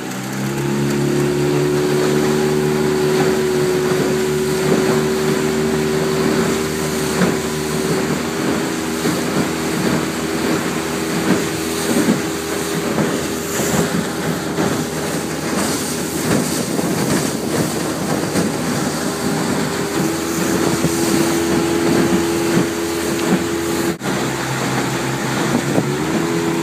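Honda 15 hp four-stroke outboard motor driving the boat under way: it revs up at the start, then runs at a steady pitch, with a small shift in pitch in the second half. Rushing water and wind noise run beneath it.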